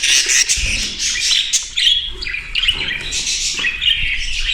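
A roomful of budgerigars chirping and chattering at once, many short high calls overlapping without a break.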